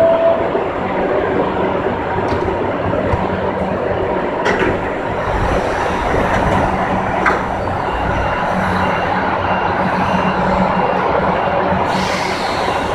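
CAF FE-07 steel-wheeled metro train running along the track, heard from the driver's cab: a steady rumble of wheels on rail with a low motor hum, a few sharp clicks along the way, and a burst of hiss near the end.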